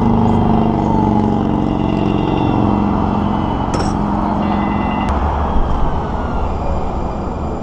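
Heavy road vehicle's engine running close by. Its pitched drone fades about five seconds in, leaving a low rumble.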